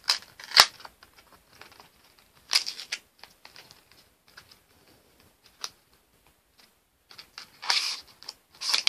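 A small cardboard box being pried and torn open by hand: short bursts of rustling and tearing, with a sharp snap about half a second in, another burst around three seconds in and a longer one near the end.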